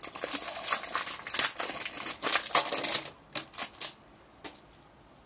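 Trading-card pack wrapper crinkling as it is handled and opened: a dense run of crackles for about three seconds, then a few lone crinkles before it goes quiet.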